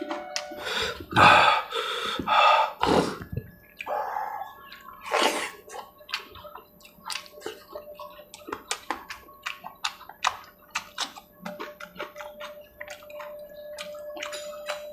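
Close-up wet chewing and mouth-smacking of someone eating curry by hand, with many small sharp clicks throughout. There are a few louder wet sucking or slurping sounds in the first three seconds and again around four to five seconds in.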